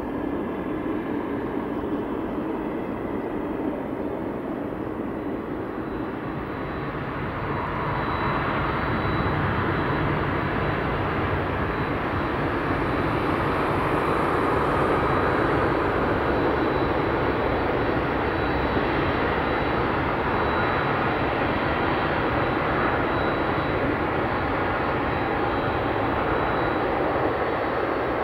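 Boeing 767-300ER's twin jet engines running as the airliner rolls out along the runway after touchdown: a steady jet rumble that grows louder about a quarter of the way in as the aircraft comes closest. A thin high whine runs over the rumble through the middle.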